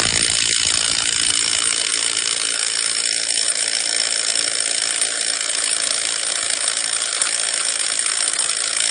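Snap-on stubby impact wrench hammering steadily at full speed as it tightens a bolt, working up to about 340 foot-pounds.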